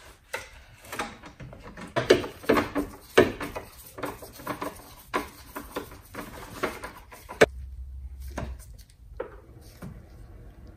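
Metal tools clinking and scraping in irregular clicks and knocks as a 13mm socket is worked with a long screwdriver to tighten the battery hold-down bolt, with one sharp click about seven seconds in.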